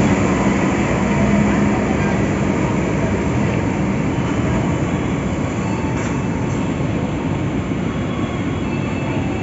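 Diesel locomotive running steadily at a station, with a low hum in the first couple of seconds that then fades.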